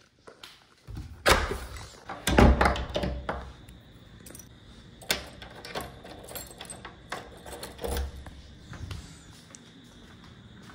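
Handling noise from a phone being carried and moved about, with a series of knocks and clatters. The loudest come one to three seconds in, and smaller ones follow every second or so.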